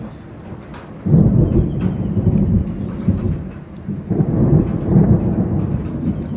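Thunder rumbling, starting abruptly about a second in and swelling again about four seconds in, over falling rain.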